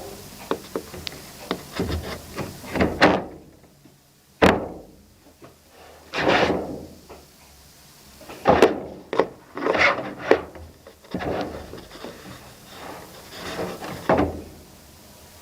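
Irregular knocks, rattles and short scrapes on wood, coming in uneven bunches, with a sharp single knock about four and a half seconds in and louder clusters around three, six and nine to ten seconds in.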